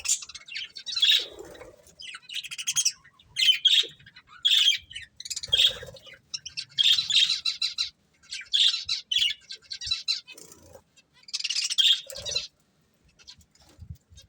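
Budgerigars chirping and chattering in quick bursts of high warbling calls, falling quiet near the end.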